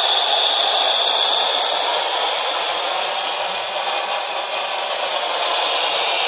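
Steady hiss of steam escaping from a fire-tube boiler that is up to about 75 psi, the pressure its pop-off valve is set to lift at.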